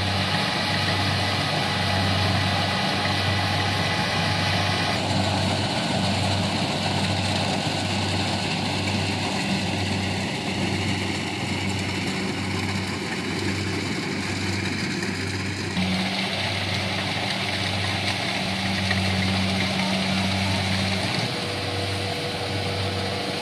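Kubota DC-70 Plus combine harvester running steadily in the field, its engine hum pulsing slowly and regularly under a wash of machine noise. The noise changes abruptly about 5 and 16 seconds in.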